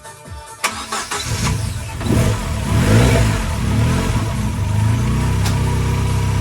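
Ford Sierra RS Cosworth's turbocharged two-litre four-cylinder engine starting about a second in, revving up briefly, then settling into a steady idle.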